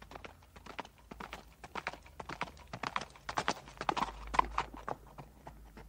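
Horse hooves clip-clopping: a quick, uneven run of hoof strikes that grows louder toward the middle and then thins out.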